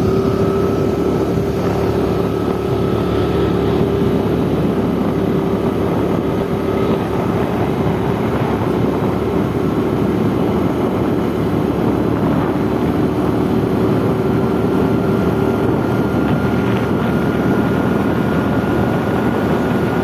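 A car driving at a steady speed, heard from inside the cabin: a steady rumble of engine and road noise, with a whine whose pitch edges up slightly in the second half.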